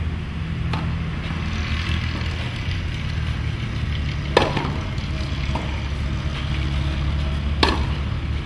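Two sharp strikes of a tennis racket hitting the ball, about three seconds apart, with a few fainter clicks, over a steady low rumble.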